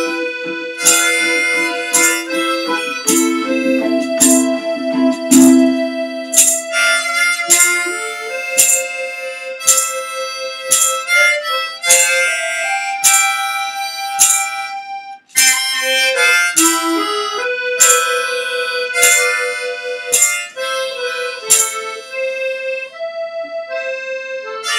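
Harmonica playing a melody of held notes over a rhythmic acoustic accompaniment with regular sharp strokes, as in strumming. There is a brief break about fifteen seconds in.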